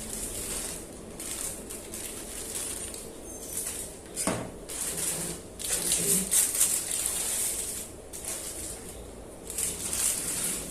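Plastic packaging crinkling and rustling in uneven bursts as an action figure and its parts are unpacked from the box, with one sharp click about four seconds in.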